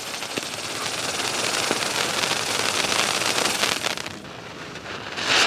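A '4x4' chakra-type fountain firework burning with a steady hissing, crackling spray, dying down about four seconds in.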